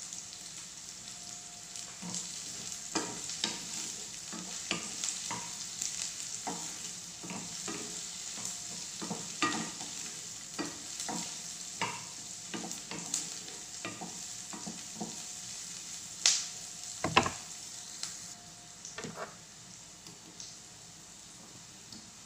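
Sliced onion sizzling in hot oil in a nonstick frying pan, with a wooden spatula scraping and knocking against the pan as it is stirred. The stirring stops near the end, leaving a quieter sizzle.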